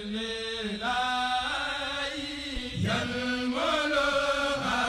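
Channel intro music with a voice singing long, held, chant-like notes.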